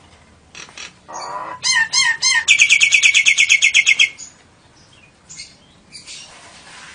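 Nias hill myna singing: a short low call, three hooked whistled notes, then a loud fast trill of about ten notes a second that stops abruptly, part of its repertoire of lovebird and canary phrases.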